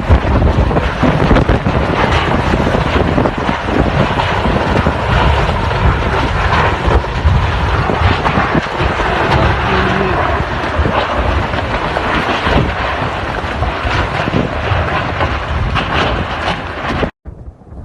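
Strong tornado wind roaring and buffeting the microphone in gusts, cutting off abruptly near the end.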